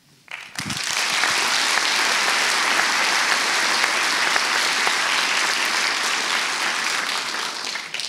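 Audience applauding, starting about half a second in and holding as steady, dense clapping.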